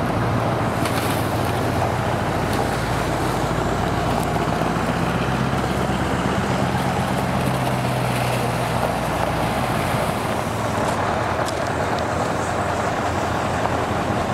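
Scania 144 L 530's 14-litre V8 diesel engine running at low revs as the tractor unit moves slowly. The deep engine note is steady, then drops away about ten seconds in.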